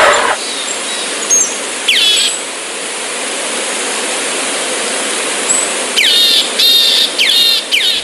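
Cheetahs chirping: short, high, bird-like chirps that slide down in pitch, one about two seconds in and a quick run of about five near the end, over a steady hiss.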